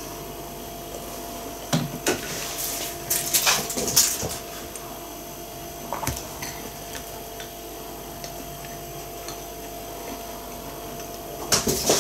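Sips of tea slurped from a mug: a few short noisy sips about two to four seconds in and again near the end, with a single knock on the table about two seconds in.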